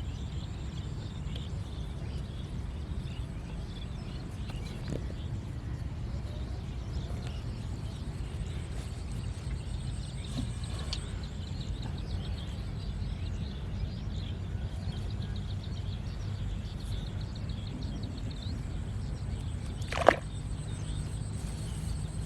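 Rural outdoor ambience: a steady low rumble with faint bird chirps, and one loud short sound about twenty seconds in.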